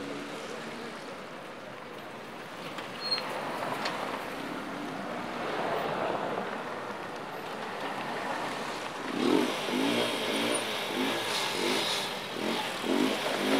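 Street traffic: cars driving past close by on a rough road, with engines and tyre noise. It gets louder from about nine seconds in as vehicles pass nearer.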